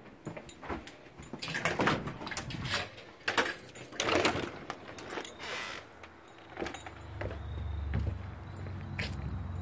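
A door being opened and someone stepping outside with the phone, a run of rustling and scraping handling noises over a few seconds. From about seven seconds in, a low steady hum takes over.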